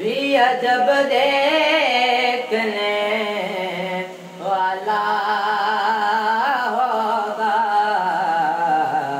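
A solo voice singing a naat, an Urdu devotional poem, unaccompanied, in long drawn-out notes with a wavering vibrato. It breaks briefly about four seconds in and then carries on.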